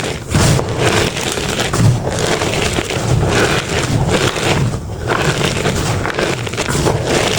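Reformed chalk blocks with glitter being crushed, a continuous crunching that comes in irregular squeezes about every half second.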